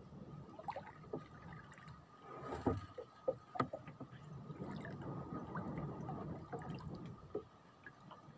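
Water lapping and gurgling against a small wooden boat's hull, with a few light knocks on the wood about a third of the way in.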